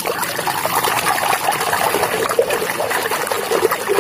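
A hand swishing and scrubbing a plastic toy in a tub of foamy, muddy water: steady sloshing and splashing.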